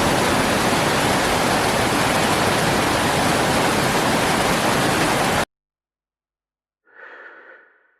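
Waterfall rushing with a steady, dense roar that cuts off abruptly about five and a half seconds in, followed by silence and a faint short sound near the end.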